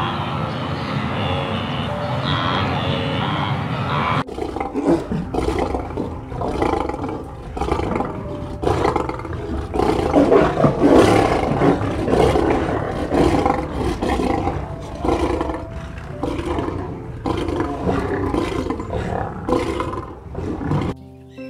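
A steady drone that cuts off sharply about four seconds in, then a lion cub giving a long run of short, rough roaring calls, loudest about halfway.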